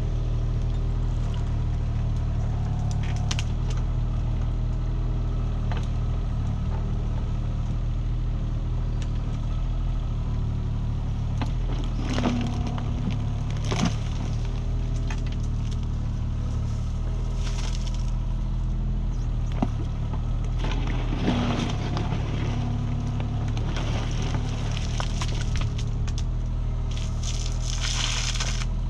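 Mini excavator's engine running steadily while the bucket digs a ditch, scraping and crunching through wet soil and roots with scattered knocks. Two short hydraulic whines come about twelve and twenty-one seconds in.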